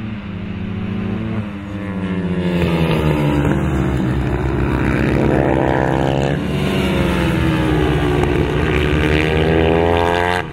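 Moriwaki MD250H race bikes, each with a single-cylinder four-stroke engine, revving hard through a corner. Their pitch climbs, drops at the gear changes and climbs again as they accelerate.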